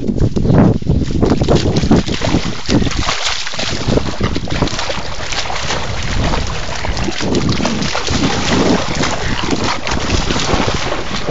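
Close, loud splashing and churning of river water as a French bulldog thrashes and swims about right at a phone's microphone, with heavy low rumble on the microphone.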